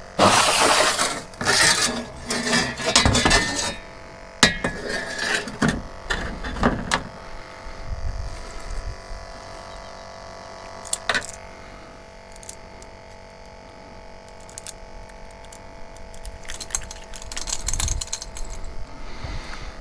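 Rummaging through fishing gear in a pickup truck bed: rustling of fabric and bags with small clinks and clicks, busiest in the first few seconds, then a few scattered clicks over a steady hum.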